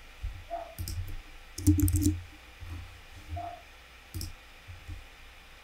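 Computer mouse clicks and a few quick keystrokes: single sharp clicks about a second in and again near four seconds, with a short rapid cluster around two seconds. Dull low bumps come through with them.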